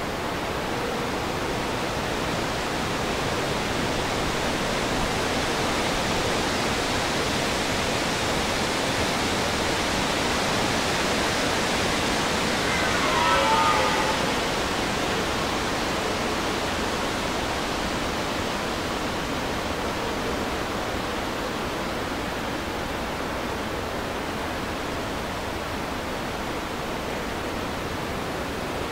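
A steady rushing noise throughout, with a red deer stag giving one faint rutting roar about halfway through, a short call that falls in pitch.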